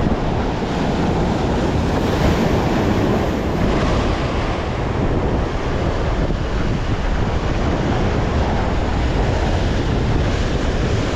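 Surf breaking and washing over jetty rocks, mixed with strong wind buffeting the microphone: a steady, loud rush with no separate events.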